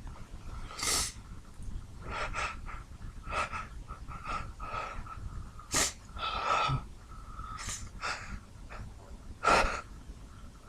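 A man in the middle of a sneeze fit: a run of sharp, gasping in-breaths and short bursts of breath through the nose and mouth, irregularly spaced. The loudest bursts come about six and nine and a half seconds in.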